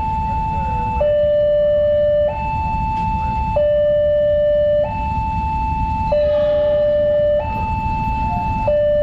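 Railway level-crossing warning alarm sounding as a train approaches: an electronic two-tone signal alternating evenly between a higher and a lower note, each held about a second and a quarter. A steady low rumble runs underneath.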